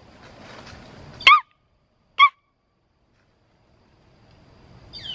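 A woman squawking twice in imitation of a bird call: two short, loud, nasal squawks about a second apart, with no bird answering.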